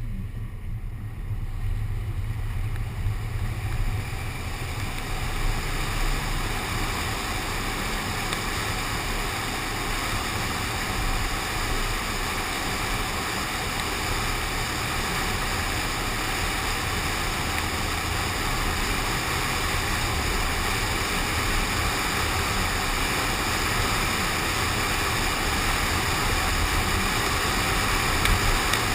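Steady rush of a car on the move in the rain: tyre spray on the wet road, rain and wind against the window-mounted camera. It builds up over the first few seconds and then holds steady.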